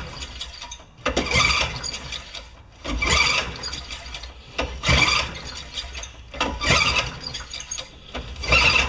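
Honda HRA214 lawn mower being pull-started about five times, the recoil starter whirring and the engine cranking over without firing. The engine turns but won't catch: the ignition coil is too weak to make the spark jump the plug gap.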